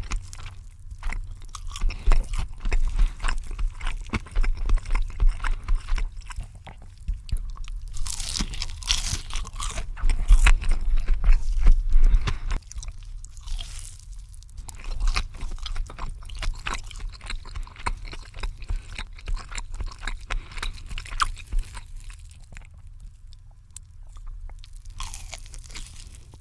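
Close-miked mukbang eating: crunchy bites and wet chewing of cheesy food, with a louder run of crunching about eight to twelve seconds in.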